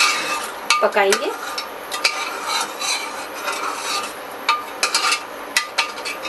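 Steel ladle stirring sambhar in an open aluminium pressure cooker, clinking and scraping against the pot's sides in irregular sharp knocks.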